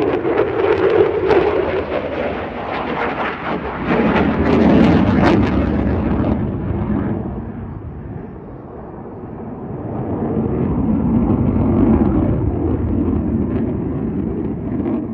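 Fighter jet engine noise from a display flyby: a loud rushing rumble with crackling over the first several seconds. It eases off around the middle, then builds again towards the end.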